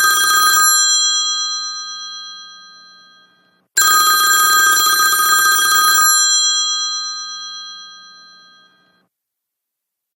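iPhone ringtone of a classic telephone bell ringing in two rings. The first ring is already being struck, stops within the first second and dies away over about three seconds. The second is struck from about four seconds in for about two seconds, then rings out before falling silent near the end.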